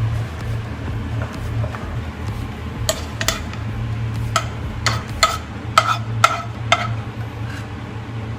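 A metal utensil clinking against dishware, about eight sharp clinks over a few seconds, starting about three seconds in, over a steady low hum.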